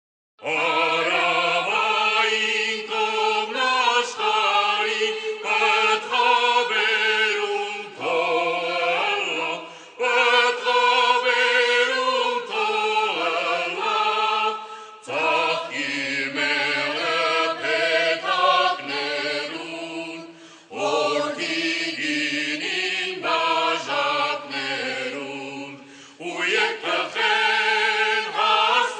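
Choir singing in Armenian, starting about half a second in, in phrases a few seconds long with short breaks between them.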